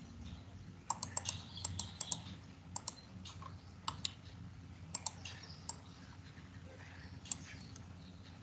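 Scattered clicks of a computer keyboard and mouse: a quick run of clicks about a second in, then single clicks every second or so, over a faint steady low hum.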